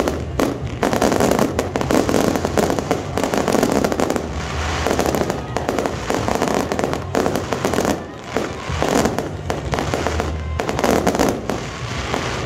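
Fireworks display: a rapid, near-continuous barrage of aerial shell bursts and crackling, with a brief lull about eight seconds in.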